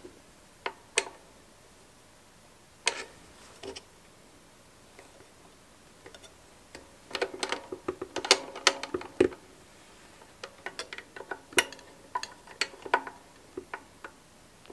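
Small metallic clicks and taps of a screwdriver and loose metal parts working inside the opened mechanism of a Bolex M8 8mm film projector: a few scattered clicks, then quick runs of clicks from about seven seconds in.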